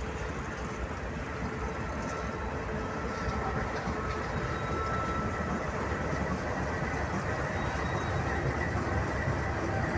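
Kansas City Southern de México diesel-electric freight locomotives passing close by: engine rumble with wheel and rail noise, growing slightly louder as the second unit draws level. A faint steady high whine runs over it.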